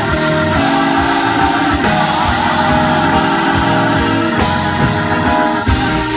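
Gospel choir singing in sustained harmony over a live band with a steady drum beat.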